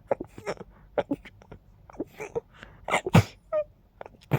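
A person's stifled sneezes, held in at the nose: a run of quick, sharp sniffs and catching breaths, then a muffled sneeze burst about three seconds in, the loudest sound, followed by a brief high falling squeak.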